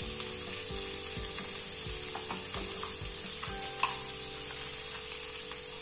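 Onion-tomato masala frying in hot mustard oil in a steel kadhai: a steady sizzle, with a spoon knocking against the pan several times while it is stirred.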